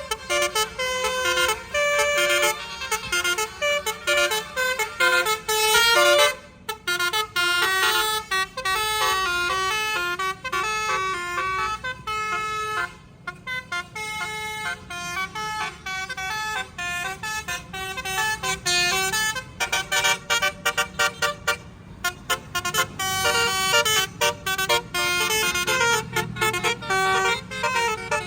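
Bus 'telolet' multi-tone musical air horn playing one tune after another, note by note with short breaks. Near the end it plays a fast run of short toots.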